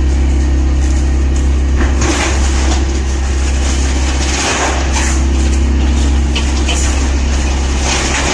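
Large engine-driven industrial wood chipper running at full speed with a heavy, steady drone, with irregular surges of crunching and shredding as wood is fed into it.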